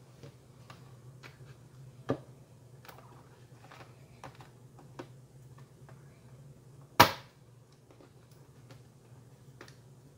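Scattered small clicks and taps from a 2018 MacBook Pro's aluminium bottom case being pulled up at its edges, with one sharp snap about seven seconds in as a retaining clip lets go. A faint low hum sits underneath.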